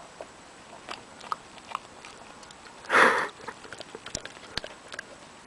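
Small dog sniffing at a piece of raw meat held to its nose, with faint clicks, and one short, loud sniff about three seconds in.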